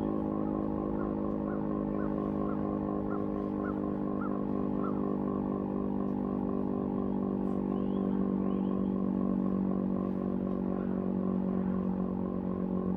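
Federal Signal STH10 outdoor warning siren sounding a steady chord, held at one pitch with a slight wavering as its rotating head turns, and swelling a little near the end.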